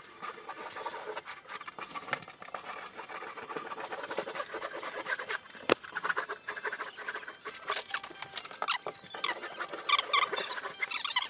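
Rubber grout float scraping thinset across a plastic waffle-pattern uncoupling membrane, an uneven run of scratchy strokes with short squeaks, loudest near the end. The float is held nearly at 90 degrees to fill the membrane's cavities and scrape off the excess.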